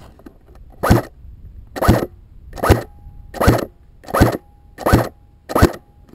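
Airsoft gun firing seven single shots, evenly spaced and slowly speeding up from about one a second to about one and a half a second. The shooter complains that the gun is double firing.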